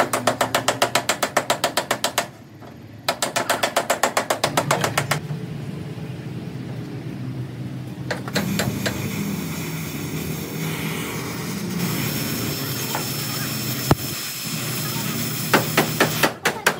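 A workshop tool clicking rapidly and evenly, about ten strokes a second, in two bursts of about two seconds each with a short pause between. It is followed by a steady mechanical hum broken by a few sharp knocks.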